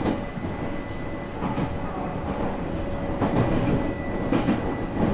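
Nagoya Municipal Subway 3050 series electric train running at speed, heard from inside the car: a steady rumble with a faint steady whine, and the wheels clacking over rail joints several times.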